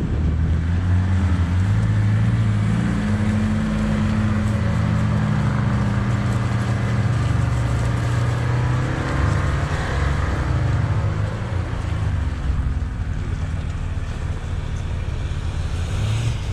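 Off-road vehicle engine running under load, its pitch rising and falling as it revs, over a steady rush of tyre and wind noise.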